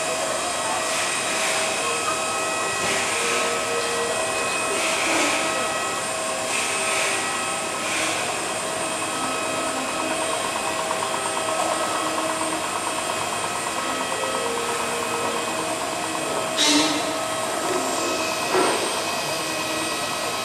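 Aircraft engine running steadily on the apron: a constant whine made of several fixed tones over a rushing hiss.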